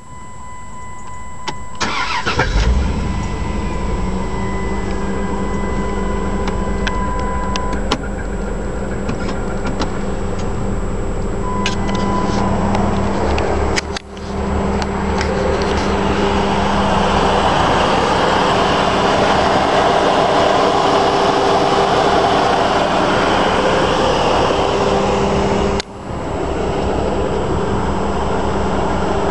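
Chrysler 300M's 3.5-litre V6 catching about two seconds in and then idling in gear with a consistent, loud clanking from the engine. The owner can't tell whether the noise is lifter tick or a spun bearing, and it is at its loudest after the engine has nearly overheated.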